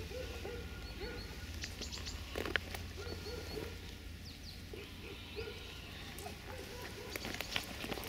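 Puppy making short, soft grunting whines, about two a second, over a steady low hum, with one sharp click about two and a half seconds in.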